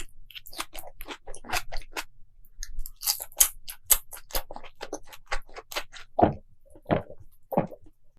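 Close-miked chewing of crunchy food: a rapid run of crisp crunches and clicks, then near the end three slower, softer, deeper chews.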